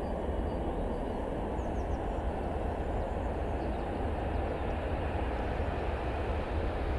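Boeing 777F freighter's GE90 jet engines: a steady deep rumble that slowly grows a little louder as the aircraft rolls along the runway.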